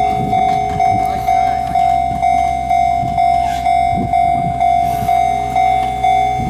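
Railway level-crossing warning bell ringing steadily, one high tone struck about twice a second.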